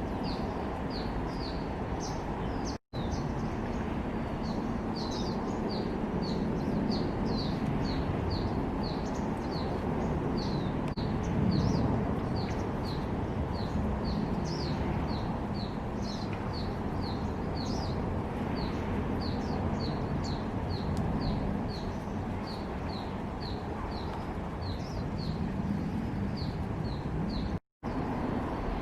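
A small bird repeating a short, high call note, about three a second, with a few more varied notes in between, over a steady low background rumble. The sound cuts out briefly twice, about three seconds in and near the end.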